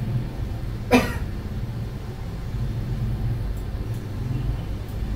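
Steady low background hum from the recording room, with one brief sharp sound about a second in.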